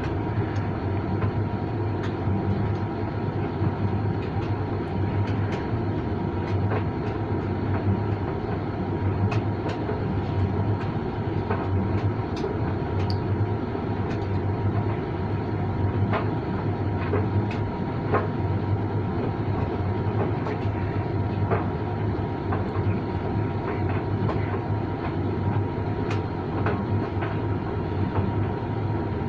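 Creda 37762G tumble dryer running: a steady motor hum and drum rumble, with a thin steady whine and scattered light clicks.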